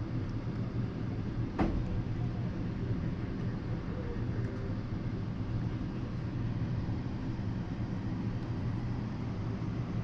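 Interior sound of a Meitetsu 200 series electric train: a steady low rumble, with one sharp click about a second and a half in.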